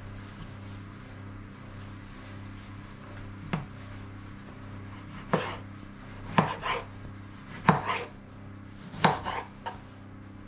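Chef's knife chopping a tomato on a wooden cutting board: a single knock about a third of the way in, then quicker knocks in pairs and small clusters through the second half. A steady low hum runs underneath.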